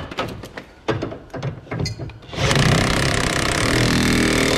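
A few clicks and knocks of a tool being fitted, then a cordless power tool runs steadily for about two seconds, driving a new tie rod end nut tight on the front suspension.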